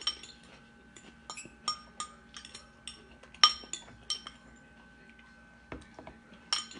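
Metal fork clinking and scraping against a ceramic bowl while scooping up spaghetti: a string of short, ringing clinks, the loudest about three and a half seconds in.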